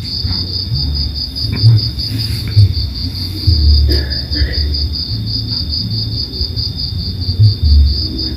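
Crickets chirping steadily in a fast, even pulsing trill, with irregular low rumbling bumps underneath.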